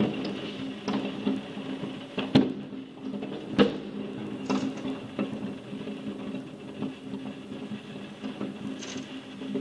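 Fireworks going off: irregular bangs and pops, the sharpest about two and a half and three and a half seconds in, over a steady low background rumble.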